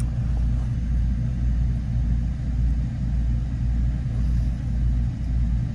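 Steady low rumbling hum with a few even low tones in it, like a motor or fan running.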